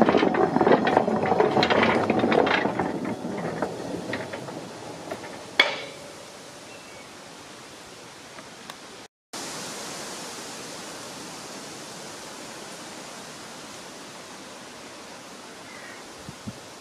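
Footsteps crunching and rustling through dry leaf litter and undergrowth, fading over the first few seconds, with one sharp click about five and a half seconds in. After that only a faint steady outdoor hiss, cut off briefly near the middle.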